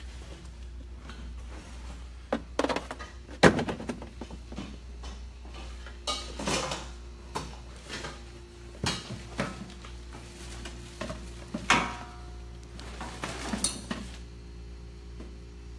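Metal hand tools clanking and clattering as they are gathered up and put away, in irregular knocks with one sharp clank about three and a half seconds in. A steady low hum runs underneath.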